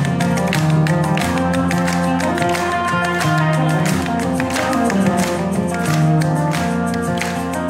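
Live rock band playing an instrumental passage: an acoustic guitar strummed together with a double-neck electric guitar, with held notes under sharp picked and strummed strokes.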